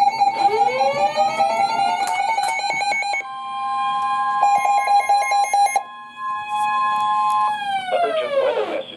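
Electronic emergency-alert siren tone: it winds up in pitch at the start, holds steady with a second, higher steady tone joining partway through, then winds down near the end, with stuttering, choppy electronic chirps over it.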